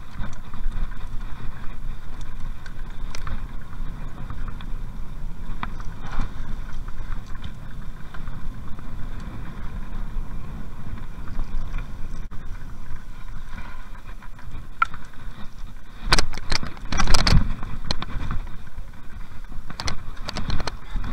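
Mountain bike rolling fast down a dirt trail: a steady low rumble of tyres and air, with clicks and rattles from the bike over bumps, loudest during a rough stretch about sixteen to eighteen seconds in.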